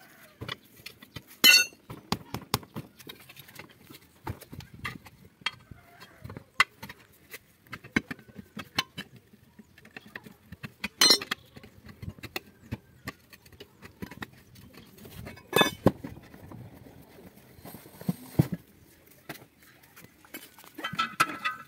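Steel tyre levers clinking and scraping against a tractor's steel wheel rim as the tyre bead is pried off. The metal knocks come at irregular intervals, with a few much louder strikes.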